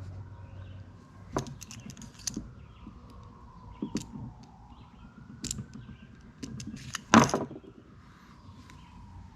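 Light metallic clinks and sharp clicks from hand tools and wire being handled, a few scattered strokes with the loudest cluster about seven seconds in. A low hum fades out in the first second.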